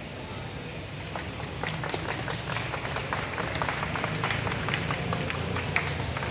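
A crowd clapping in scattered, irregular claps that thicken about a second in, over a low steady hum.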